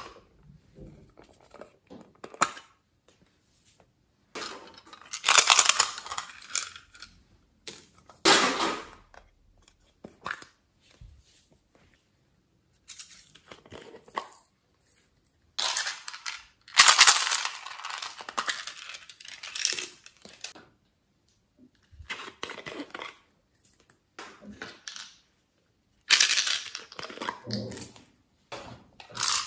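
Sprinkles and small beads shaken out of plastic ice-cream-cone containers onto slime in a glass dish, with the containers handled. The sound comes in several bursts of a few seconds each, separated by short quiet gaps.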